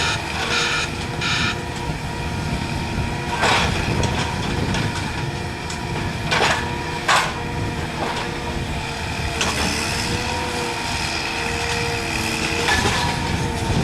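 Excavator's diesel engine running steadily while it handles concrete railway sleepers, with about three sharp knocks of hard material in the middle and two short high beeps near the start.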